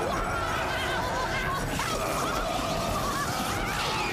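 Cartoon-style lightning-bolt sound effect: dense electrical crackling with short, wavering squealing zaps that rise and fall over it.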